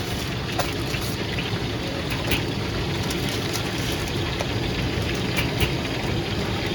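Steady noisy din with a few light clicks and knocks scattered through it.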